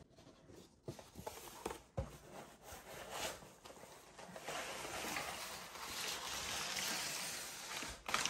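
Cardboard shipping box being handled, with a few light knocks and scrapes, then brown kraft packing paper rustling and crinkling steadily from about halfway through as it is pulled out of the box.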